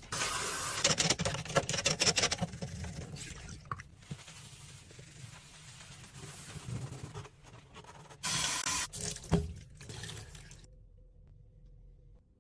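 Liquid being poured into a container: a longer pour at the start and a second short pour past the middle, with clicks of handling around them.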